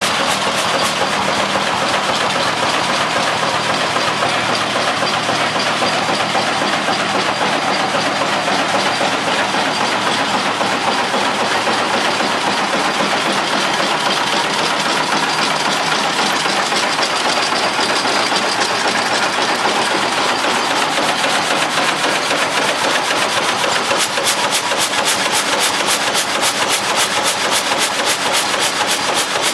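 Old frame saw (oppgangsag) running, its gang of vertical blades moving up and down through a log. It makes a loud, steady mechanical noise with a regular beat that grows clearer in the second half.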